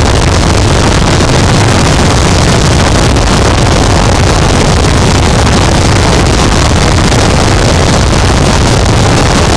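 Harsh noise wall: a dense, unchanging wall of distorted static at a very high level, heaviest in the bass, with no rhythm, pitch or variation.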